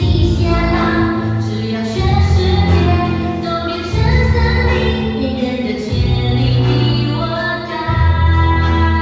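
A song from a stage musical: voices singing over instrumental accompaniment, with the bass notes changing about every two seconds.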